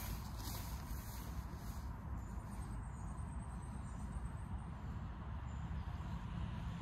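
Outdoor background noise: a steady low rumble with faint rustling in the first couple of seconds, and a faint high chirping trill between about two and four seconds in.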